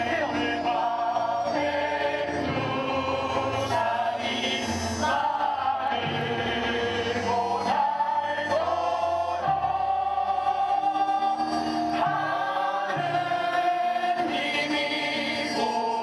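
A crowd singing together as a chorus over musical accompaniment, many voices holding long notes.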